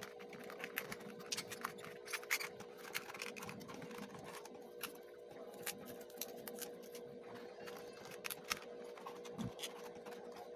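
Stiff paperboard pieces of a 3D jigsaw-puzzle jet model crackling and clicking irregularly as hands bend and slot them together, over a steady faint hum.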